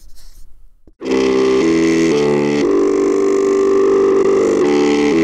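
Background music: loud sustained synthesizer chords starting about a second in, changing chord every second or so.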